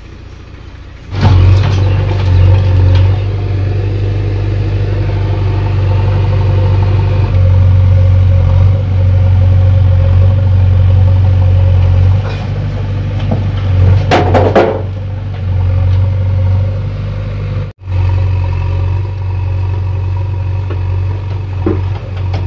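Diesel engines of a JCB backhoe loader and a Massey Ferguson 241 tractor running at close range, a loud steady drone that comes in about a second in. There is a brief clatter about fourteen seconds in.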